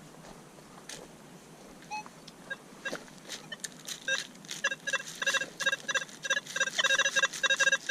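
Metal detector sounding target tones: a run of short, high electronic beeps begins about four seconds in and comes faster and louder toward the end, after a few faint clicks.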